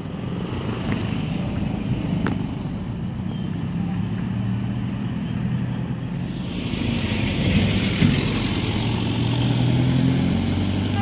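Road traffic: cars, motorcycles and a truck driving past with their engines running, making a steady low hum. About six and a half seconds in, the background changes to more hiss.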